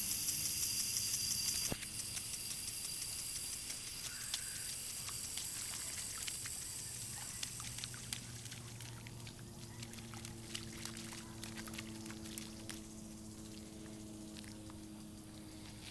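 Shallow runoff water trickling along a street gutter, with small splashes as a toddler's sandaled feet step back and forth through the puddle.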